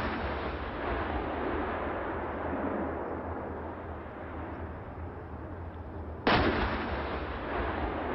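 The dying rumble of a Bofors 155 Bonus submunition warhead detonating on a target tank, over steady background noise. About six seconds in, a second sudden, loud blast that dies away over about a second.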